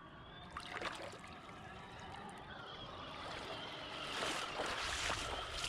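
Water running and gurgling in a shallow stream, with small splashes and clicks, growing a little louder toward the end.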